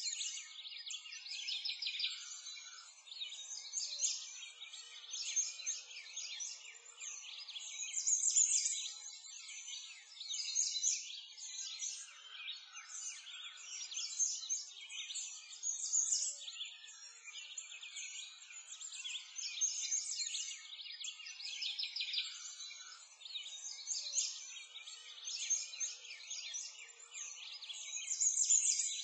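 A chorus of small songbirds chirping and twittering continuously in high, thin calls, with nothing low beneath them.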